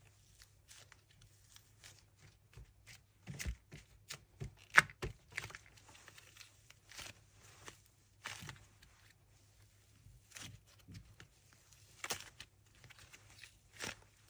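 A paper squishy crinkling and crackling as hands squeeze and pull it apart, in irregular bursts with the loudest crackle about five seconds in.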